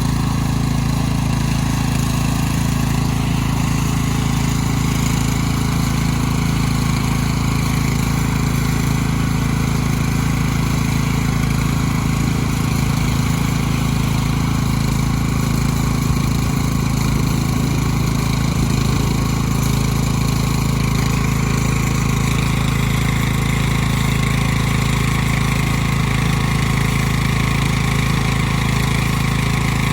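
Tractor engine running steadily at an even pitch and level.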